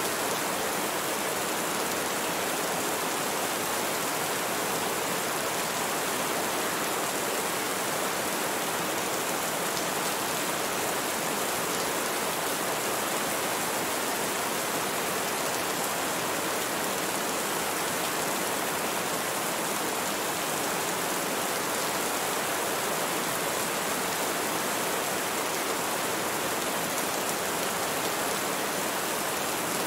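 Steady rainfall: an even, unbroken hiss of rain with no thunder.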